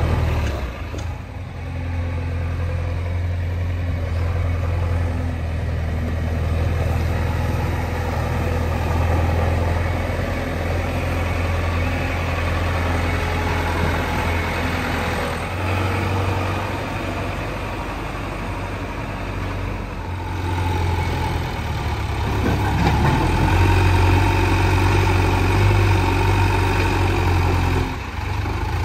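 Diesel engine of heavy earthmoving machinery running steadily near idle, with a low steady hum. It grows louder about twenty-three seconds in and drops back near the end.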